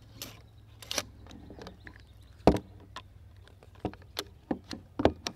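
Metal parts of a Robinson Armament XCR-L rifle clicking and clacking as it is reassembled by hand: recoil spring and guide rod going back in and the hinged receiver closing. The clicks come separately, with one sharp clack about halfway through and a few more clicks near the end.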